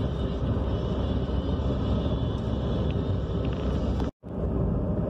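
Steady road and engine rumble of a car at highway speed, heard from inside the cabin; it cuts out completely for an instant about four seconds in.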